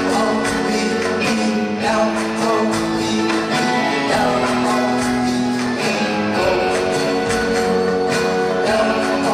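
Live pop-rock song: male voices singing long held notes over acoustic and electric guitars, with a steady percussion rhythm.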